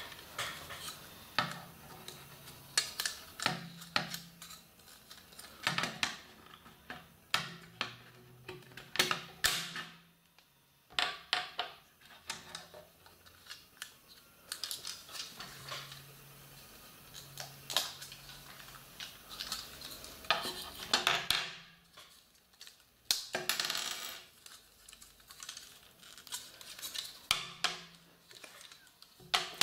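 Beyblade parts and their packaging being taken out of a box by hand: irregular clicks and clatter with bits of rustling.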